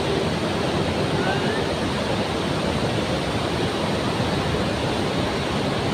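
Steady, even rushing noise filling a large indoor aquarium hall around a big open water tank, with a faint short rising chirp about a second in.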